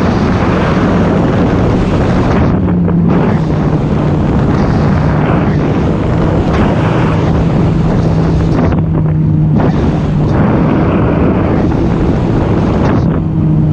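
Sea-Doo jet ski's supercharged three-cylinder engine running at speed on open ocean, a steady low drone under heavy wind buffeting on the microphone and rushing water. The rushing noise thins out briefly three times, about three, nine and thirteen seconds in.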